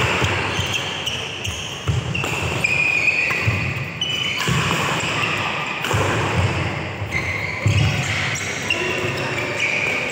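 Badminton doubles rally: sharp racket strikes on the shuttlecock every second or two, short high-pitched shoe squeaks on the synthetic court mat, and thudding footsteps as the players lunge and recover.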